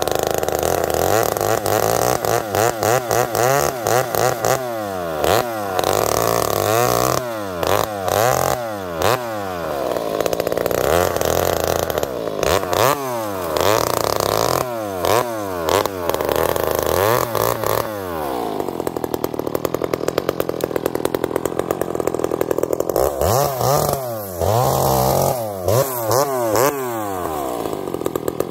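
Ported Husqvarna 266XP two-stroke chainsaw bucking a log into firewood rounds, its engine revving up and dropping back again and again. Past the middle it settles to steadier, lower running for a few seconds, then revs up and down again near the end.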